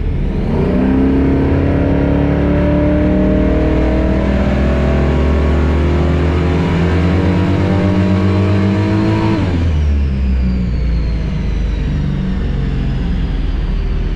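Holden 304 V8 with an MSD Atomic EFI throttle body making a full-throttle dyno pull. The revs climb steadily for about nine seconds, then the throttle shuts and the engine drops back. A high whine falls away afterwards.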